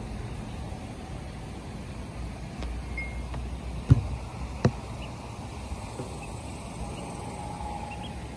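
Steady low outdoor rumble with wind on the microphone, two sharp knocks close together about four seconds in, and a few faint high peeps from ducklings.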